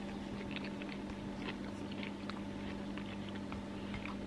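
A person chewing a mouthful of rice bowl with faint, soft mouth clicks, over a steady low hum.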